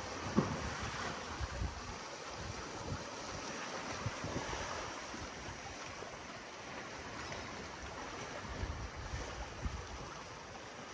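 Sea waves washing on a rocky shore, with gusts of wind buffeting the microphone and a brief knock about half a second in.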